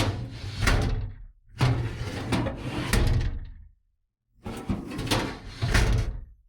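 Steel file drawer sliding along its rails in a metal tool-box side locker and clunking to a stop, three times in a row.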